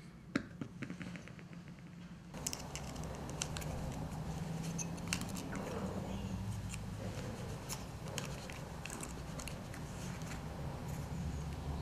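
A sharp knock and a quick run of small clicks as a small antique brass fishing reel is set down. Then a knife blade works a bamboo garden cane, scraping with scattered sharp clicks and cracks, over a steady low hum.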